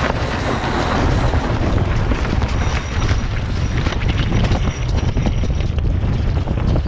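Steady wind buffeting the microphone aboard a sailboat under way, a heavy low rumble with a broad hiss of wind and water over it.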